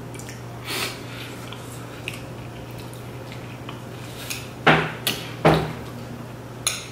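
Eating sounds: a utensil scraping and clinking in a ceramic bowl, with a cluster of sharp, loud clicks and smacks in the second half. A steady low hum runs underneath.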